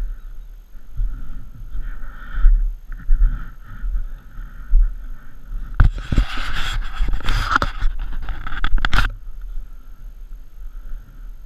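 Triumph Tiger Explorer XC three-cylinder adventure motorcycle riding along a gravel track, a steady low rumble of the bike and wind. About six seconds in, roughly three seconds of crunching and rattling from loose gravel and stones under the tyres, the loudest part, then it settles back to the steady running.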